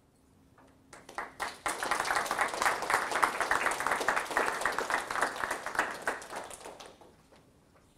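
Audience applauding. A few claps start about a second in, swell quickly into full applause and die away about a second before the end.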